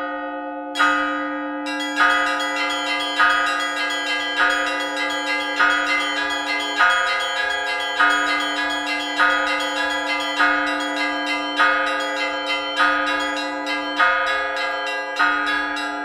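Russian church bells ringing, the higher bells struck in a steady repeating pattern about every 1.2 seconds over a larger bell's sustained hum.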